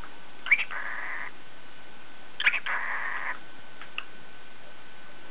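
Cockatiel giving two short raspy calls, one about half a second in and another about two and a half seconds in, the chattering it uses when trying to talk.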